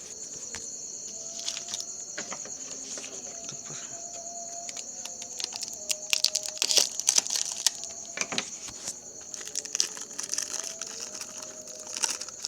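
A box and its packaging being handled and opened: crinkling, tearing and clicking, busiest about six to seven and a half seconds in. Crickets chirp steadily behind it.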